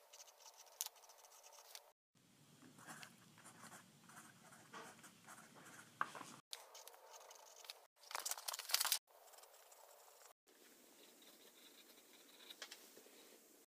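Pencil scratching across paper while writing: short runs of quiet strokes broken by abrupt cuts, with a louder burst of quick scratching about eight seconds in.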